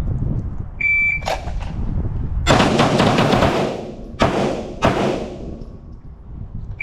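Shot timer's start beep, then a string of 9mm pistol shots, each with a ringing tail, from the FMK G3 and Staccato P being fired against the clock. A second timer beep near the end marks the six-second par time.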